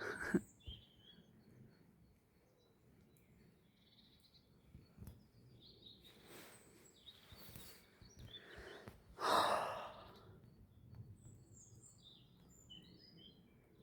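Faint, scattered songbird chirps and calls, with a person's breathy sigh about nine seconds in.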